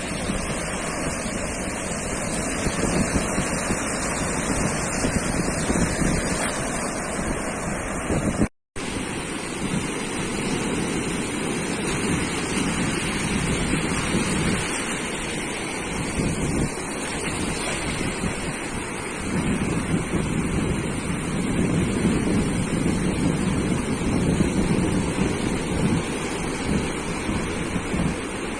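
Ocean surf washing onto a sandy beach, a steady rushing with slow swells as waves break, with wind buffeting the microphone. The sound cuts out completely for an instant about a third of the way through.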